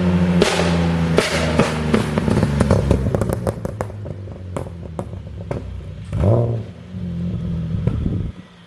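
Car engine revved and let back down, its exhaust crackling and popping on the overrun: a quick run of sharp cracks that thins out over about five seconds, then a short rev and idle before the engine sound drops away near the end.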